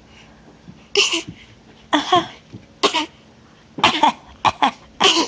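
A baby fake-coughing in play: a run of about seven short coughs, roughly one a second and quicker near the end, some of them voiced.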